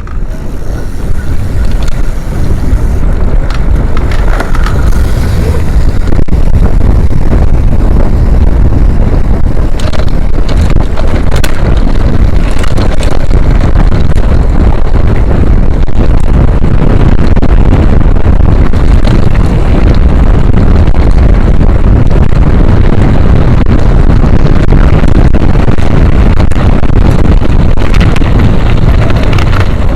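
Loud, steady wind rumble buffeting the microphone, as on a camera riding along with a mountain bike at speed, with scattered short knocks and rattles from rough ground.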